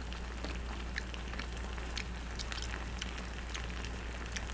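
Creamy milk-based shrimp penne sauce simmering in a grill pan, with scattered small pops of bubbles over a steady low hum.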